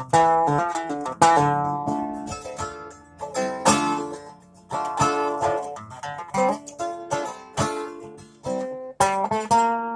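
A plucked string instrument played solo: chords and single notes are picked and strummed, each ringing out and fading before the next.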